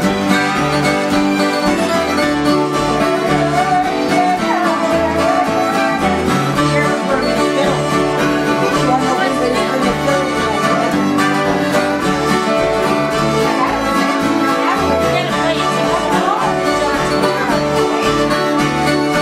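Live acoustic string band playing a bluegrass-style instrumental: several acoustic guitars strumming with a fiddle carrying a wavering melody above them.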